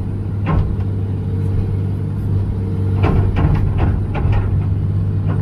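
John Deere 200LC excavator's diesel engine running steadily under hydraulic load while digging, with a few short knocks and scrapes as the bucket works the dirt and roots, the first about half a second in and a cluster around three to four seconds in.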